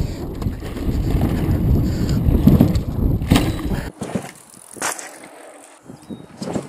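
Wind buffeting a helmet camera and tyres rolling over a dirt trail as a mountain bike rides downhill: a loud, steady rumble. It cuts off sharply about four seconds in, leaving a much quieter stretch with a few faint clicks.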